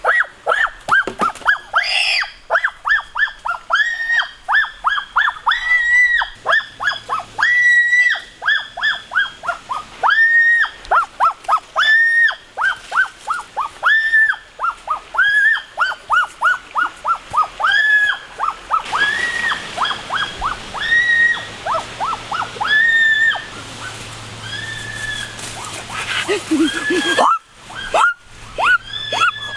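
An animal calling in a rapid train of short, high yelps, several a second, with longer drawn-out cries in between, going on without a break.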